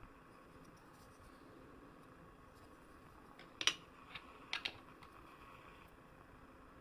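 A cluster of light clicks and taps from something being handled, a little past halfway: one sharp click, then three or four smaller ones within about a second.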